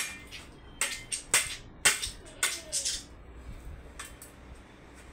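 Dry coconut husk being worked by hand: a string of sharp, rasping cracks and scrapes, about eight of them, irregularly spaced over the first four seconds.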